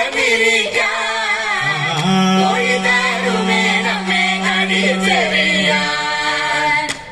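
A group of men and women singing a Malayalam folk song (naadan pattu) together with no instruments, a long low note held through the middle and a short break near the end.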